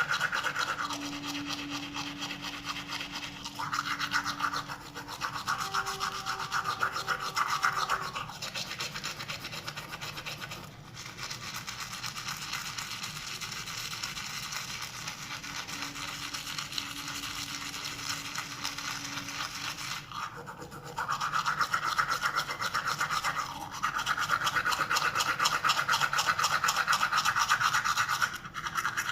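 Toothbrush scrubbing teeth close up: a rapid, even scratching with short breaks, louder for a few seconds near the start and again through most of the last third.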